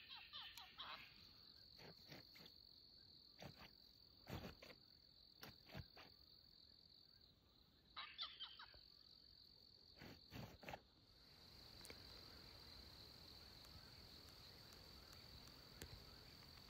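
Night insect chorus, a steady high-pitched trill, with a few short clicks and two brief bursts of quick falling chirps, one near the start and one about eight seconds in.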